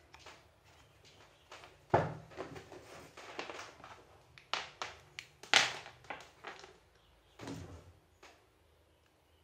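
Handling noises at a workbench: a string of knocks and rustles as a cable and a mobile phone are picked up and moved about. There are two louder thuds, about two seconds in and about halfway through.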